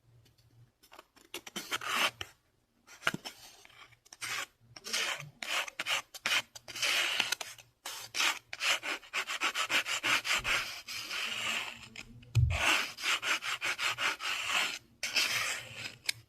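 Fast, aggressive scratching on a surface close to the microphone: rapid rasping strokes in quick runs with short pauses between them.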